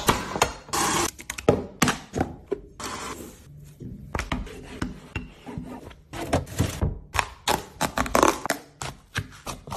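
Knife cutting through pumpkin on a wooden chopping board: a run of irregular knocks and thunks.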